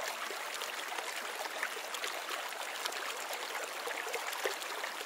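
Steady sound of running water, even and unbroken, with a fine crackling texture.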